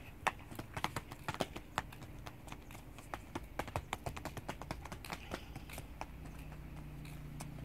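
Quick, irregular footsteps of small children running on a concrete platform, several light slaps a second, thinning out after about six seconds. A faint low hum sets in near the end.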